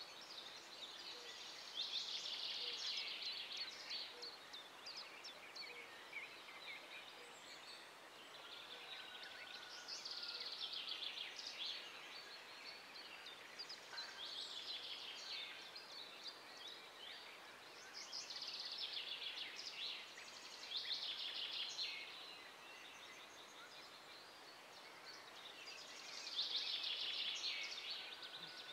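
Songbird singing: short phrases of rapid twittering repeated every few seconds, over a faint steady outdoor hiss.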